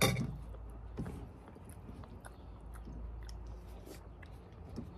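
A person chewing food close to the microphone, with a sharp click right at the start and small scattered clicks after, over a steady low hum.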